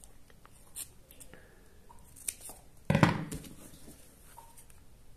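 Quiet handling sounds of craft foam and a pen in the hands: a few small ticks and clicks, with one louder brief rustle or bump about three seconds in.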